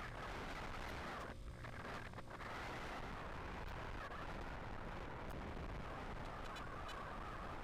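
Steady wind rush buffeting a helmet-mounted action camera's microphone while riding a Honda TMX125 motorcycle at cruising speed, with motorcycle and road noise mixed in underneath.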